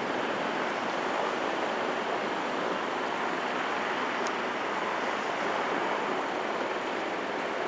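Steady rushing noise with no pitch, even throughout.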